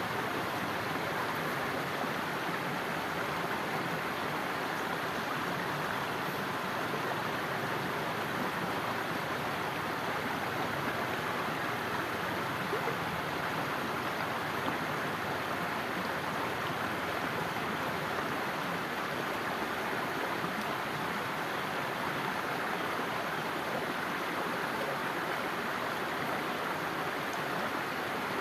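Shallow stream running over stones, a steady, even rush of water with no breaks.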